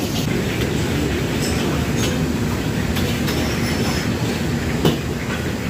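Commercial wok range and extractor hood running, a loud steady rumble, with a few sharp metal clanks of utensils on the wok, the loudest about five seconds in.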